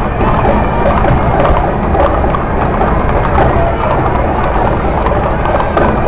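Many horses' hooves clip-clopping on a paved street as a mounted parade passes, with music playing at the same time.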